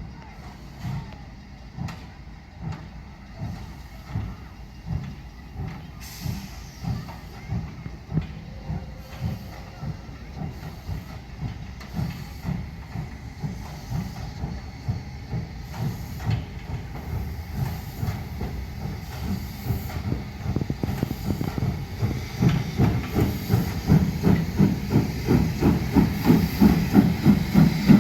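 Steam locomotive 65 018 pulling away under load: its exhaust chuffs start slow, about one a second, and quicken and grow louder as it gathers speed, reaching two to three a second near the end.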